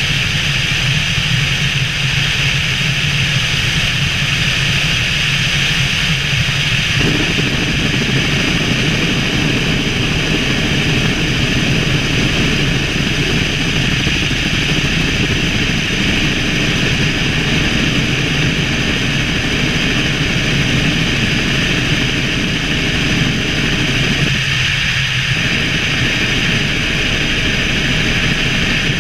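Helicopter in flight, its engine and rotor making a loud, steady drone. The sound fills out in the middle range about seven seconds in.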